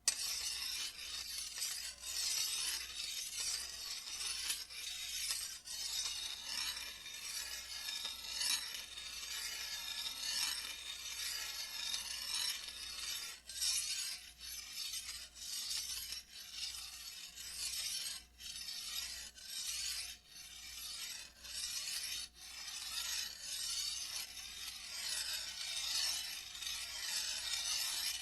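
Metal being sharpened by hand: rough, high-pitched rasping strokes repeated about every second or two, each broken off by a short pause.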